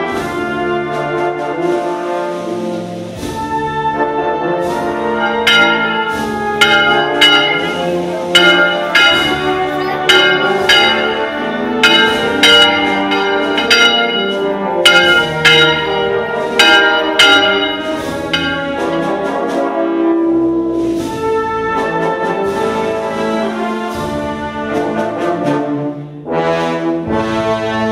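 Brass band playing, with sustained brass chords over regular percussion strikes.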